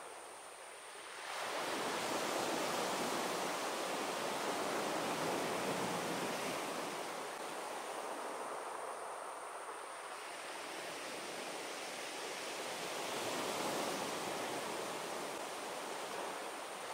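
Sea waves washing onto a beach: a wave surges in about a second and a half in, its wash running on, and another swells near the end.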